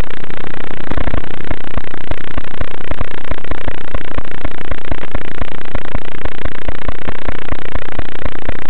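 Loud, heavily clipped crackling noise with dense, irregular clicks, muffled with nothing in the high range, from the audio track of an analog FPV drone's recorded flight feed.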